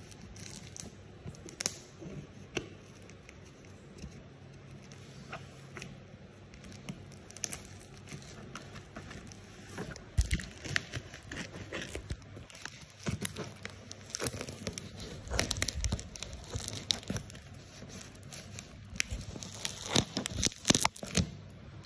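A cardboard shipping box being opened by hand: packaging tearing and crinkling, with scattered clicks and knocks that come thicker and louder about halfway through.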